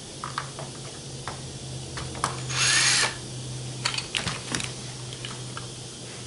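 Ryobi cordless drill with a driver bit spinning in one short burst of about half a second, a little over two seconds in, its motor pitch arcing up and back down. Light clicks and taps come from small parts being handled before and after it.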